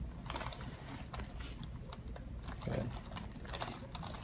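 Soft, irregular clicking and rustling of hands and clothing being handled on a chiropractic treatment table between adjustments, with a short low vocal sound about two-thirds of the way through.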